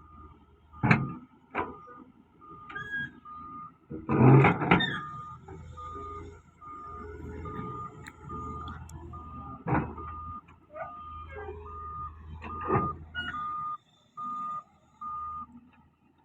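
A heavy machine's reversing alarm beeping steadily, about two beeps a second, over the low running of a diesel engine. It is broken by loud clanks about a second in and again near ten and thirteen seconds, with a louder clattering burst around four seconds in.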